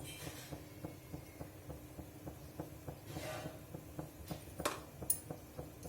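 Faint kitchen sounds of an uttapam cooking on a hot pan: light irregular ticking and crackling over a low steady hum, with a few sharper clicks near the end.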